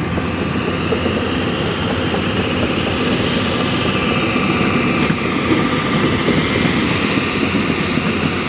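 Diesel engine of a heavy construction machine (backhoe loader or excavator) running steadily under work, with a fainter higher whine that rises in pitch about midway through.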